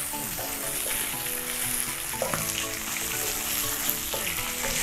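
Sliced mushrooms, garlic and basil leaves sizzling in oil in a nonstick frying pan as a wooden spatula stirs them, with a couple of sharper scrapes of the spatula against the pan.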